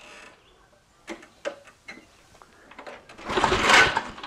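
A few light clicks and knocks, then near the end the recoil starter cord of a push lawn mower is yanked hard: a loud rasping whirr of the rope pulling out and the engine turning over, lasting under a second. The pull ends with the worn starter rope snapping, and the engine does not start.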